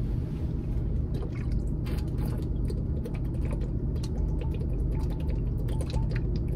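A person gulping water from a plastic bottle, with small irregular clicks and crinkles from the bottle and the swallowing, over a steady low hum inside a car.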